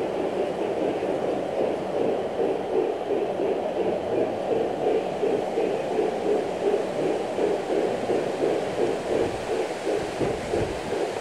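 G-scale model train running with a steady, even pulsing of about three pulses a second.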